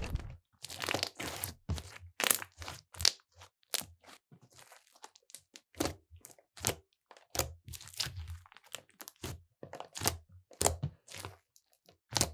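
Glossy slime squeezed and kneaded by hand, giving irregular crackling pops and squelches, several a second, as the air pockets trapped in it burst under the fingers.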